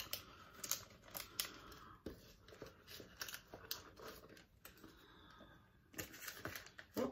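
Faint clicks and rustles of a small handbag being handled while its stiff, never-opened snap closure is worked open with both hands.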